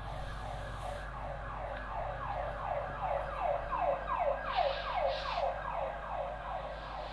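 A siren-like sound: a fast series of falling tones, about three a second, that grows louder toward the middle and then fades. Two short hisses come a little past the middle.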